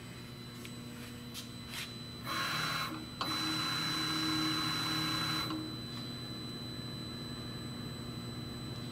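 Moore G18 CNC jig grinder's axis drive moving the table under jog: a short run about two seconds in, then a longer one of about two seconds with a steady high whine that stops abruptly, over the machine's steady hum. A few clicks of control-panel buttons come before the moves.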